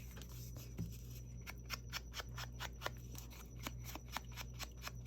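Scissors cutting paper in a quick run of short, crisp snips, several a second, starting about a second in.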